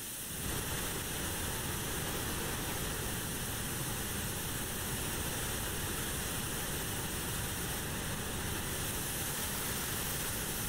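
Digitally generated white noise and pink noise from Max/MSP's noise~ and pink~ objects, playing together as a steady hiss. About half a second in, the pink noise is turned up and a deeper rush fills in underneath.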